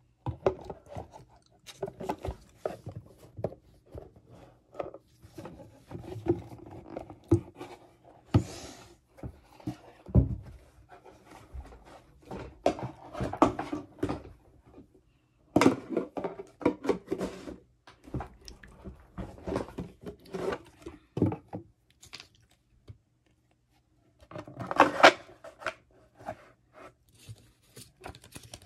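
Pokémon card booster packs and cards being handled: irregular scraping, tapping and rustling of card and wrapper, with a louder burst of handling about 25 seconds in.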